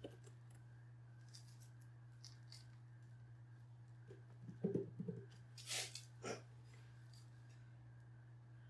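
Hands rummaging among small parts and tools on a workbench while searching for a dropped tiny gear: faint scattered clicks and rustles, with a few louder scrapes and knocks about five to six seconds in, over a steady low hum.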